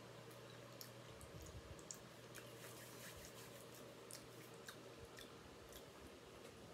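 Faint chewing of a mouthful of meatball marinara sub with the mouth closed: soft scattered mouth clicks over near silence.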